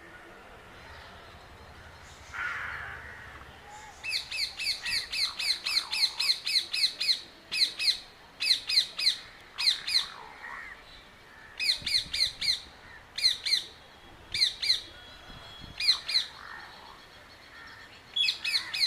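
A bird calling in rapid bouts of sharp, high, repeated notes, about five a second, starting about four seconds in and breaking into shorter runs later. Fainter, lower calls sound in the background.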